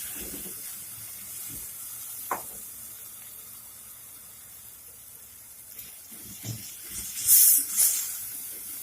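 Onion sizzling gently in a little ghee in a pot, cooked only until it turns yellow, with a steady frying hiss. A sharp click comes a couple of seconds in, and two louder surges of sizzle come near the end.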